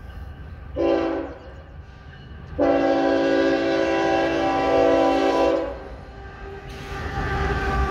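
CSX diesel freight locomotive's multi-chime air horn sounding a short blast about a second in, then a long blast of about three seconds: the closing short-and-long of the grade-crossing signal. Near the end the locomotive's engine and wheels rumble past, growing louder.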